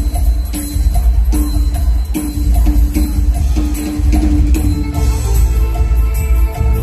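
Live mor lam band music played loud through large stage speakers: a heavy bass and steady beat under a melody of short repeated notes.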